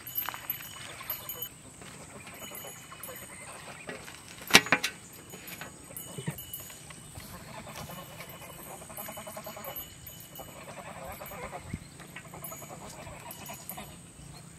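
Farm animals calling in the background, with one sharp knock about four and a half seconds in.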